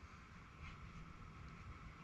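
Near silence: a faint, steady background hum with no distinct sound events.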